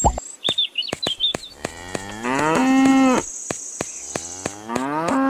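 A cow mooing twice, each moo rising in pitch and then held; the second begins near the end. A light clicking runs underneath.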